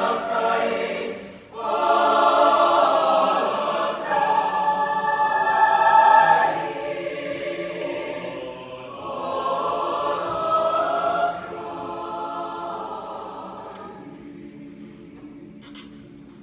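A choir singing long, held phrases that die away over the last few seconds.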